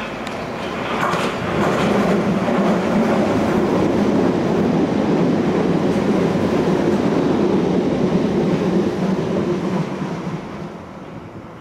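Piccadilly Line 1973 Stock tube train running fast past a station platform: wheel rumble and clatter on the rails, with a few sharp clicks early on. It builds up about a second and a half in, stays loud, then fades near the end.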